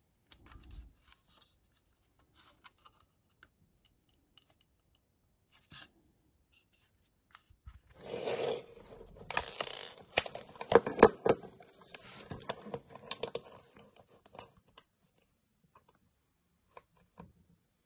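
Handling noise from the opened plastic watt meter case and multimeter test leads being moved and pressed into place: light scattered clicks, then several seconds of scraping and rubbing in the middle, followed by a few more faint clicks.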